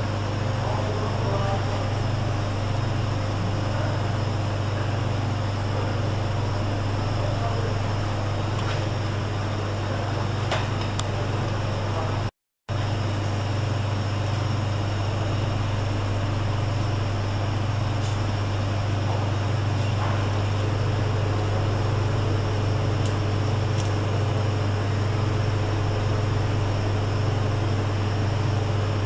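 Steady low hum and airy rush of commercial kitchen ventilation, with a few faint ticks of utensils. The sound cuts out completely for a moment about twelve seconds in.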